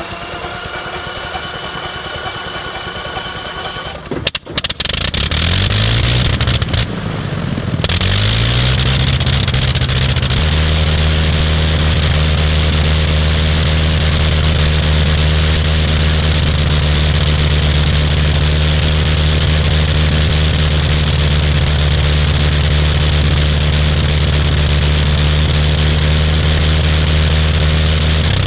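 Gnome Monosoupape nine-cylinder rotary aero engine starting. It is spun up with a rising whine, catches about four seconds in and fires unevenly with loud bangs. From about ten seconds in it settles into a steady, even run.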